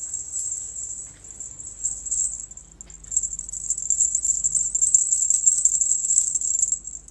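Insects, likely crickets, trilling in a steady high-pitched chorus, growing louder about three seconds in.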